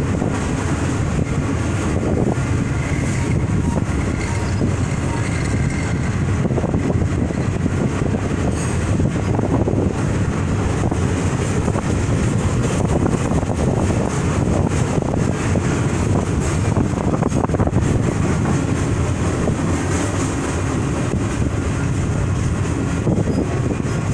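Freight train of boxcars rolling past, a steady rumble of steel wheels on the rails.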